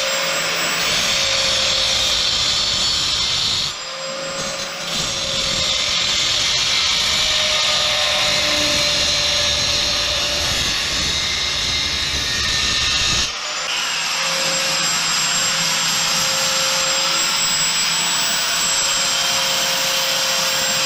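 Electric angle grinder cutting and grinding an exhaust pipe: a steady high whine over a loud rasping hiss. It eases briefly about four seconds in, then breaks off abruptly about thirteen seconds in and goes on again as the grinder works the end of the pipe.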